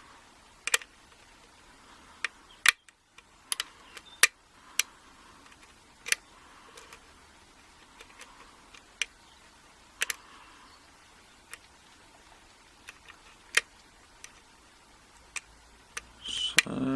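Lock picks clicking and scraping inside a six-pin pin-tumbler euro cylinder during single-pin picking: sharp, irregular clicks, some a second or more apart, from the pick lifting pins and the key pins setting or dropping under tension.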